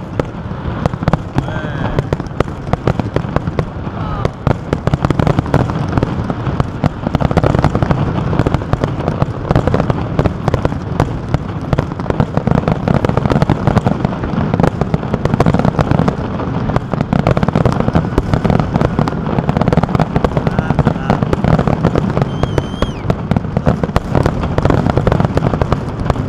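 Aerial fireworks display: a dense, unbroken barrage of bangs and crackling bursts.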